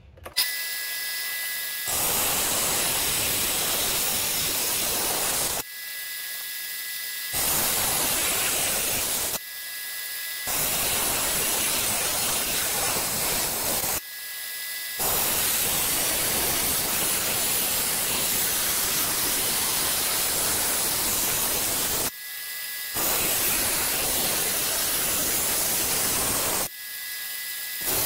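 Water-cooled rock saw cutting through an agate nodule: a steady, loud hissing grind. Several times the noise drops back for a second or two to a quieter thin whine, then picks up again.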